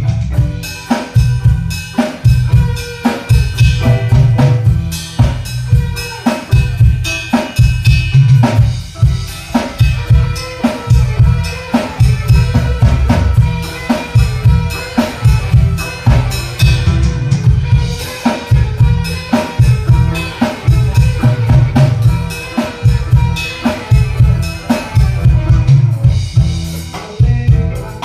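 Instrumental band music driven by a drum kit, with a steady bass-drum and snare beat under sustained pitched instrument notes.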